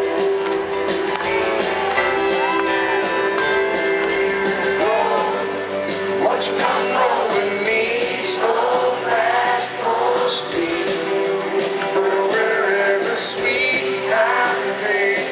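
Live country band playing, recorded from the crowd: electric and acoustic guitars over a steady band backing, with a male lead vocal coming in strongly about six seconds in.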